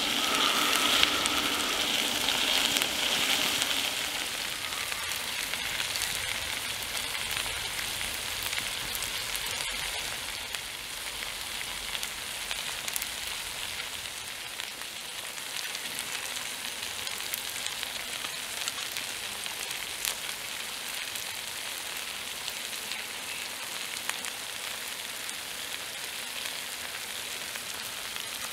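Dakgalbi (chicken, cabbage and rice cakes in spicy sauce) sizzling in a cast-iron skillet, a steady frying hiss with scattered small pops. It is louder for the first few seconds, then settles to a quieter, even sizzle.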